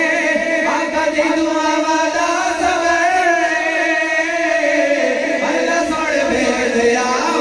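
Several men's voices singing a Punjabi devotional kalam (naat-style recitation) together into microphones, without instruments, in long held, wavering notes.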